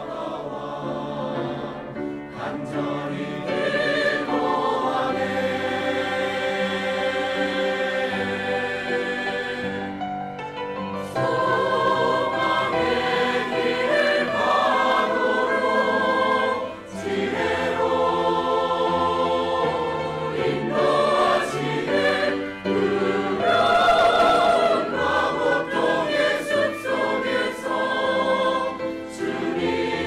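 Mixed-voice church choir singing a sacred anthem in parts, with sustained notes. It grows louder about 11 seconds in, with a short break near 17 seconds.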